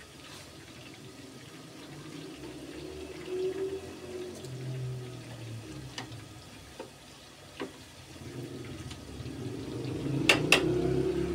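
Chicken pakoras deep-frying in hot oil, the oil bubbling and sizzling steadily and growing louder in the last few seconds. A metal slotted spatula clicks against the pan a few times, with two sharp clicks close together near the end.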